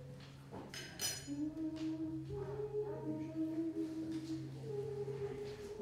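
Unaccompanied Orthodox liturgical chant: a voice sings slow, long held notes, stepping from pitch to pitch. A brief sharp sound about a second in.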